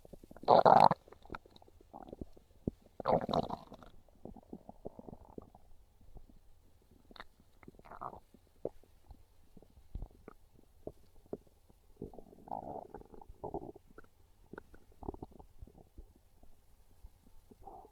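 Hungry stomach growling and gurgling: two loud rumbles, one about half a second in and one about three seconds in, then softer, irregular gurgles and small pops, with another cluster of gurgles about twelve seconds in.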